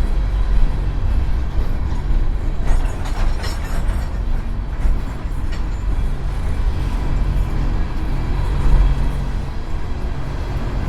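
Empty coal train of hopper cars rolling past, a steady loud rumble of steel wheels on rail. A harsher, higher-pitched wheel noise rises over it from about three seconds in and lasts a couple of seconds.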